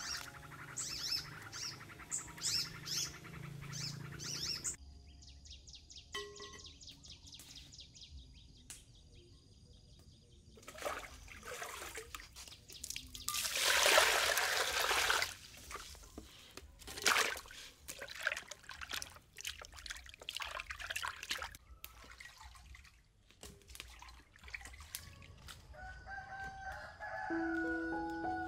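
Water poured into a basin: a loud rush of splashing lasting about two seconds midway, with smaller splashes and knocks around it.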